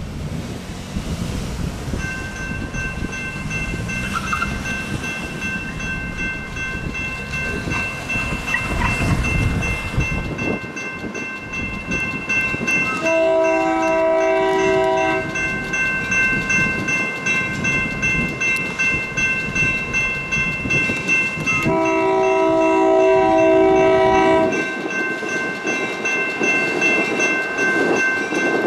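An electronic railroad crossing bell starts ringing about two seconds in and keeps ringing. A Union Pacific GP38-2 freight locomotive's horn sounds two long blasts, about 13 and 22 seconds in, as the train approaches the crossing. A low rumble runs under the first ten seconds.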